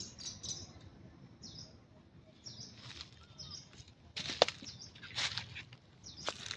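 Short high chirping calls, then from about four seconds in a few sharp cracks or rustles, the loudest about four and a half seconds in.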